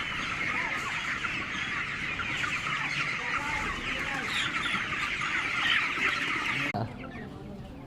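A large flock of broiler chickens calling all at once, a dense, continuous chorus of overlapping chirps and clucks. It cuts off abruptly near the end, leaving a quieter background.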